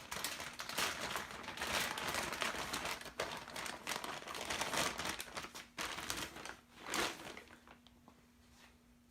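Packaging crinkling and rustling as a bundled section of a wiring harness is unwrapped, with many sharp crackles; it stops about seven seconds in.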